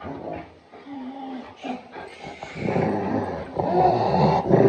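Dog growling: a low, continuous rumble that starts about two and a half seconds in and grows louder toward the end.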